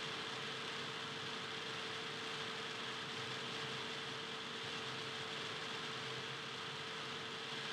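Steady hiss with a constant hum tone, unchanging throughout; no bounces, squeaks or other distinct sounds stand out.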